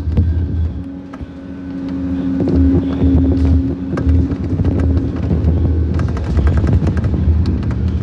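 Scania K230UB single-deck bus's diesel engine heard from inside the cabin, easing off about a second in and then building again as the bus pulls away, with a steady whine for a couple of seconds in the middle. Short rattles and clicks from the bus interior run through it, thickest near the end.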